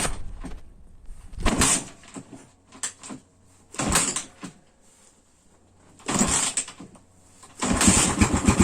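Irbis TTR 250 single-cylinder four-stroke engine being kick-started: three hard kicks turn it over, each a short burst of noise, and about three-quarters of the way through it fires and settles into a fast, even running beat. This is the first start after a new cylinder and piston were fitted.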